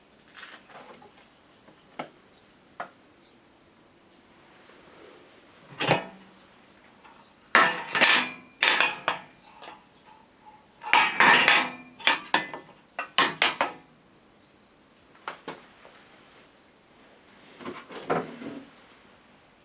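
Irregular clicks, knocks and clattering of hard objects being handled, busiest in two spells near the middle.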